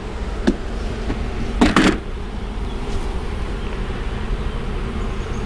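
Honeybees buzzing around an opened hive, a steady hum from a colony that is agitated and defensive. About a second and a half in, a short, louder burst of noise cuts through.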